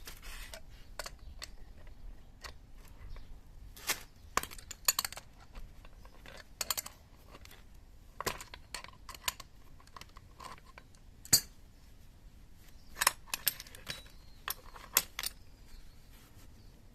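Irregular metallic clinks and clicks of hand tools and small metal parts being picked up and set down, with the sharpest clink about eleven seconds in and a quick run of them near the end.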